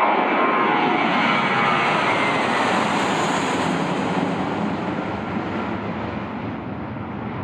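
Airbus A320-232's twin IAE V2500 turbofans at takeoff thrust as the airliner climbs away: a loud jet roar with a fan whine that slides down in pitch over the first couple of seconds, then slowly fades.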